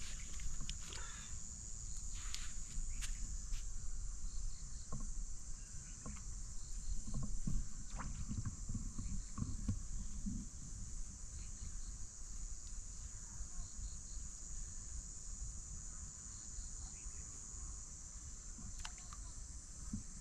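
Steady high-pitched chorus of insects, with scattered faint ticks and clicks and a few low knocks.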